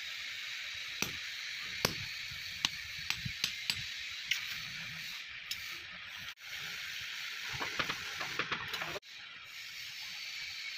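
Hammer striking a hand-held punch set on a pickaxe head on the anvil, to punch the eye hole for a handle: about seven sharp metallic strikes at an uneven pace in the first four seconds or so. A few lighter metal clinks follow near the end, over a steady hiss.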